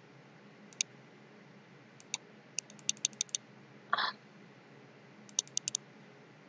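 Sharp clicks from a computer's keys or mouse buttons, scattered singly and in quick runs of four or five, with a short scraping rustle about four seconds in, over a faint steady hum.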